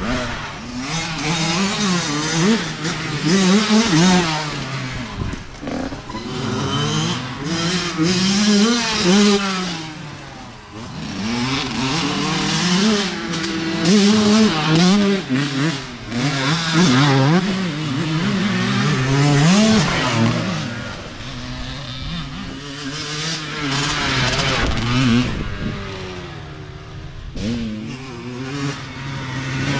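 Youth dirt bikes racing past one after another, their engines revving hard, the pitch climbing and dropping over and over with throttle and gear changes. The sound swells as each bike comes near and fades as it goes by.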